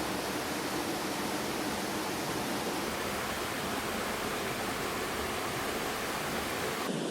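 Rushing water of a waterfall: a steady, even hiss with no breaks.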